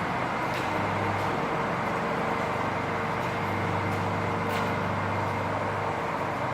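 A motor running steadily: an even rumble with a constant low hum and a few steady higher tones, with a few faint ticks.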